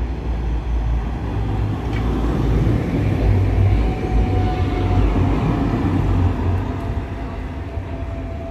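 ASEA/MGB M31 articulated tram passing by, its rumble on the rails swelling as it nears and fading as it pulls away. A steady whine comes in during the second half.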